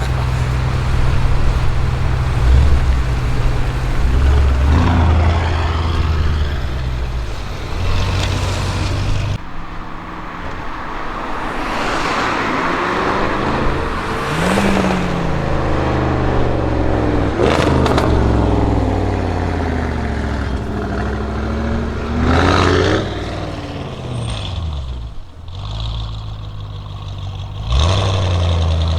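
Audi RS6 Avant C7's twin-turbo V8 through a Milltek exhaust, idling with a deep rumble and revved a couple of times. After about nine seconds the sound changes to engine notes rising and falling in pitch as the car pulls away and drives past among traffic, with a few sharp cracks in between.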